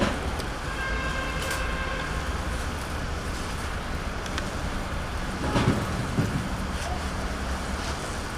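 Steady city traffic noise, with a brief high-pitched squeal about a second in and a few low knocks and rumbles a little after halfway.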